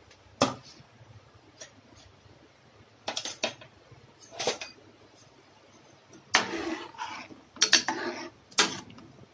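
A metal ladle knocking and scraping against a metal kadai while stirring cubes of yam in water: scattered sharp clinks, with a longer scrape and stir about two-thirds of the way through and two more knocks near the end.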